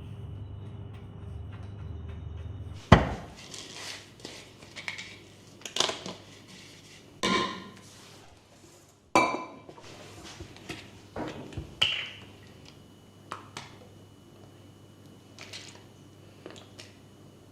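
Dishes and utensils clinking and knocking as they are handled and set down, as a run of separate sharp strikes. The loudest knock comes about three seconds in, and a ringing clink about nine seconds in.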